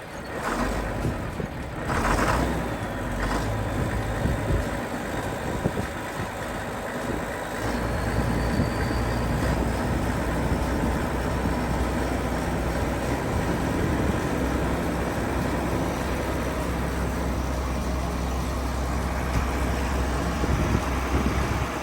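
John Deere 4850 tractor's six-cylinder diesel running on a cold start after sitting five months. It gives a few sharp surges in the first seconds. About eight seconds in it gets louder with a faint rising whistle and settles into a steady run.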